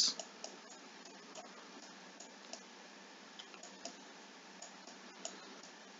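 Faint, irregular light clicks and taps from writing by hand on a computer, over a steady low hiss.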